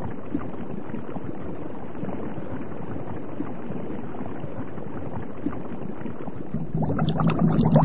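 Underwater ambience: a steady rush of water noise. About six and a half seconds in, louder bubbling with a low hum starts.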